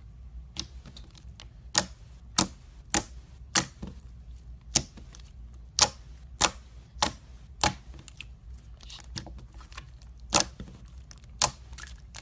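Slime being pressed and poked, making a series of sharp pops, mostly about one every half second, with a pause of about two seconds before the last two.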